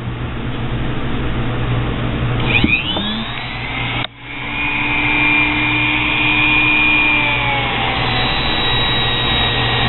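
Handheld rotary tool with a small emery rubber buffer wheel, spinning up about two and a half seconds in and then whining steadily at high speed, with a short break about four seconds in. Its pitch dips a little near the end as the wheel is held against a steel screwdriver shank to buff it.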